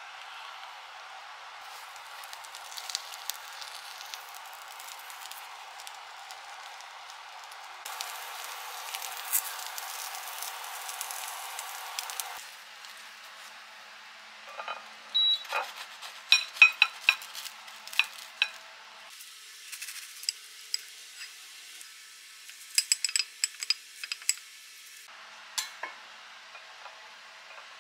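Egg and tortilla sizzling steadily in a cast-iron skillet, louder for a few seconds before it stops abruptly about twelve seconds in. After that come clusters of sharp clinks and scrapes as the pan and utensil knock against a ceramic plate while the food is plated.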